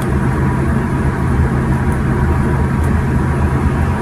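Steady low droning hum of background noise, with a faint high steady tone running through it.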